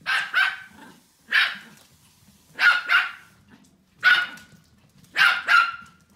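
Pomeranian barking: about eight short, sharp barks, coming singly and in quick pairs, roughly one group every second or so.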